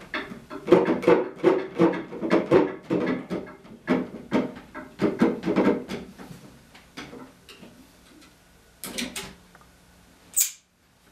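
Quick run of wooden knocks and creaks as Windsor chair spindles are twisted and tapped down into tight holes in the wooden seat, about four a second, thinning out after six or seven seconds. A few lighter clicks follow, then one sharp clack near the end.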